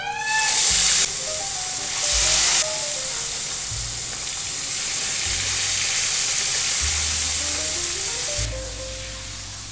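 Battered food lowered into hot oil in a wok sizzles loudly, with a second surge of sizzling about two seconds in, then settles into steady frying that eases near the end.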